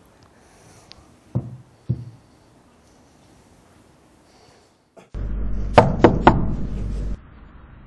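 Two soft thuds as a cordless phone handset is set down on a table, then three quick, sharp knocks on a door over a low steady hum that starts and stops abruptly.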